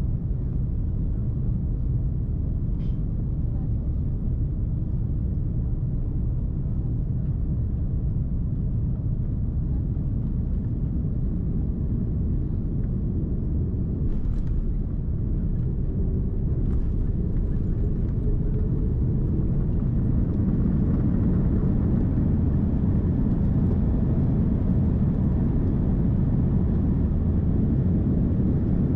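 Cabin noise of an Airbus A330-300 landing: a steady low rumble of engines and airflow heard from a window seat. It grows louder about two-thirds of the way in as the airliner touches down and decelerates on the runway.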